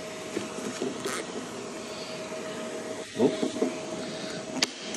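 A 3D-printed ABS mount handled against a plastic DeWalt battery holder during a test fit: a scrape of plastic on plastic about three seconds in and a short sharp click near the end, over a steady hum.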